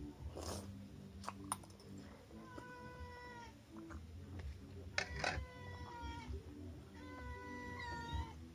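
A cat meowing repeatedly in long drawn-out meows, about three in all, with a few sharp clinks of a spoon against a bowl.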